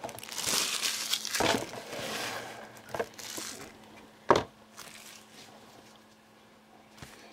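Trading card packaging crinkling and crackling as it is handled and opened, with a few sharp clicks, the loudest about four seconds in; it dies down to faint handling noise in the second half.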